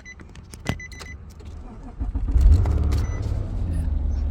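A few short electronic chime beeps, then the 2013 Nissan Maxima's 3.5-litre V6 catches about two seconds in, flares briefly and settles into a steady idle. It now starts after its starter wiring, cut for an aftermarket tracking device, was reconnected.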